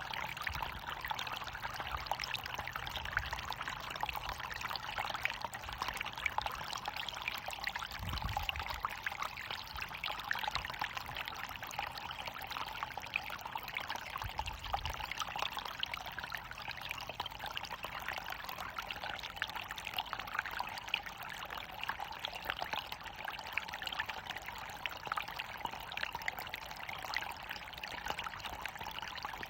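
Running water from a small waterfall, falling and splashing in a steady, even hiss.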